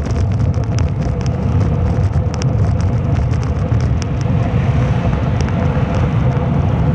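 Motor vehicle running steadily as heard by someone riding in the open, a continuous low engine rumble with a steady hum, wind and road noise, and scattered faint clicks.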